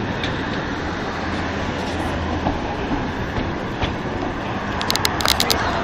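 Welsh Highland Railway narrow-gauge train running, heard from on board at the carriage window: a steady rumble of the coaches with scattered wheel clicks on the rails, and a quick run of sharp clicks about five seconds in.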